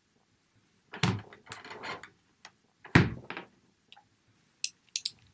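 Sound effects of an old service revolver being got out and handled. A sliding thump comes about a second in and a heavier thump about three seconds in, then a few sharp small metallic clicks near the end.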